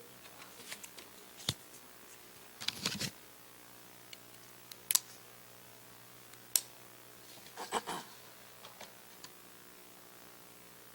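Scattered sharp clicks and knocks at irregular intervals, some in short clusters of two or three, over a faint steady hum.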